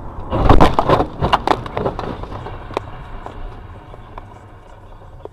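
A car crash: a loud cluster of bangs and crunching begins about half a second in and lasts about a second and a half, then a few lone knocks follow, over a steady low vehicle rumble.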